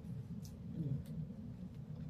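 Quiet eating sounds: a few faint mouth clicks from chewing a piece of grilled fish, over a low steady room hum.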